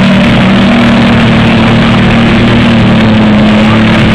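Lifted pickup truck's engine running hard and loud under load as its tyres churn through deep mud, holding a steady pitch.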